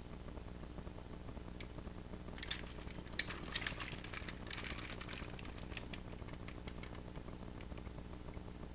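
Hard plastic parts of a Deluxe Megazord robot toy clicking and rattling as it is handled and turned over, with a burst of quick clicks from about two and a half to six seconds in and a few single clicks after. A faint steady low hum sits underneath.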